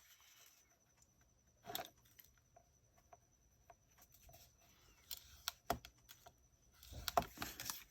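Paper being handled and scored on a small scoring board: faint rustles and scrapes with a few light taps, a brief scrape about two seconds in and a busier rustle near the end.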